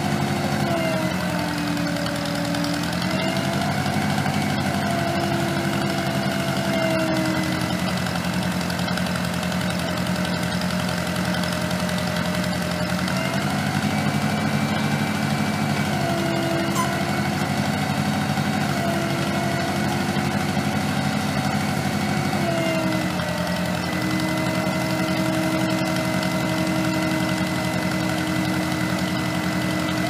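Case 530 Construction King backhoe engine running steadily while the backhoe digs, its pitch dipping and rising again a few times as the boom and bucket are worked.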